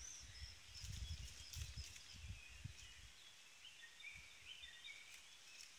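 Faint woodland birdsong: scattered short high chirps and twitters from distant birds, over soft low rumbling.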